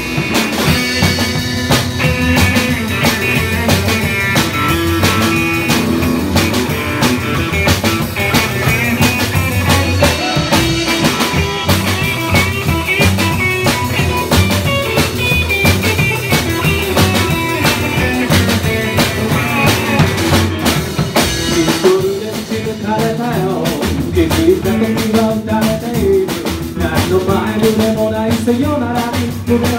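Live rock and roll band playing: electric guitar, upright double bass, drum kit and strummed acoustic guitar. The texture briefly thins about two-thirds of the way through before the band carries on.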